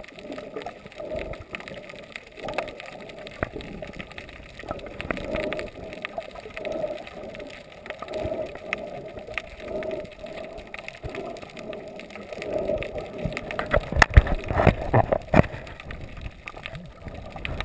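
Underwater sound picked up through an action camera's waterproof housing: muffled water noise with many scattered clicks and crackles. Louder knocks and splashing come in near the end as the camera nears the surface.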